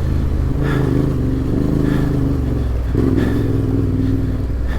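Adventure motorcycle engine running at low, steady revs on a dirt trail, its note shifting about three seconds in as the throttle changes.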